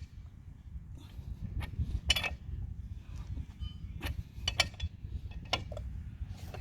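Wheel nuts being tightened with a wrench: scattered metallic clicks and knocks at an uneven pace over a low rumble.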